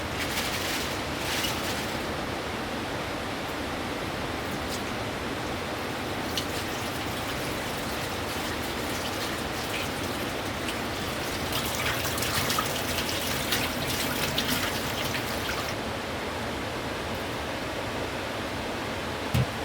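Steady rush of a flowing river. A scatter of light clicks and crackles sits on top about two-thirds of the way through, and a short knock comes at the very end.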